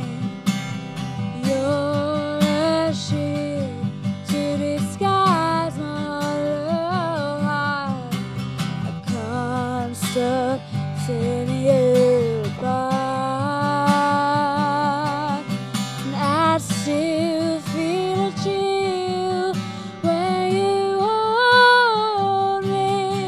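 Woman singing a slow melody with vibrato on held notes, over a strummed acoustic guitar.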